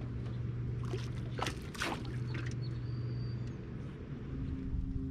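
Steady low hum of a fishing boat's motor, with a few short splashes of water between about one and two and a half seconds in.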